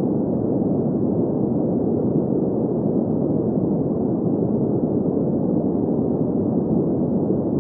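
Green noise: a steady, even hiss of synthetic noise centred in the low mids, with no high treble and no changes.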